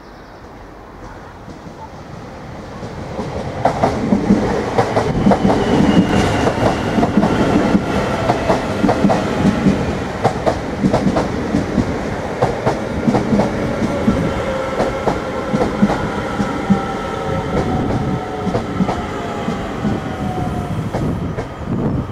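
Irish Rail 8520 class DART electric multiple unit arriving at a platform. It rumbles in with a swelling run of wheel clatter over the rail joints, then a whine that falls in pitch as it slows.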